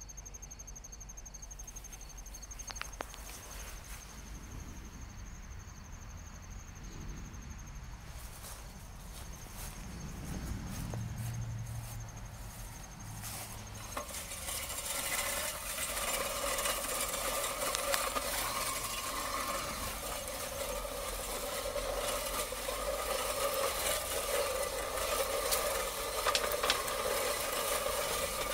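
A steady high insect trill at first. From about halfway in, a Craftsman Quiet Cut 18 push reel mower rolls over grass, its spinning reel blades giving a steady whir with scattered clicks as they cut.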